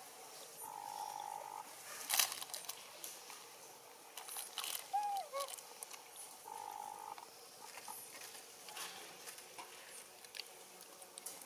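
Outdoor wildlife calls: a buzzing, steady-pitched call about a second long, heard twice, with scattered sharp clicks and a short falling squeak near the middle. The loudest moment is a sharp click about two seconds in.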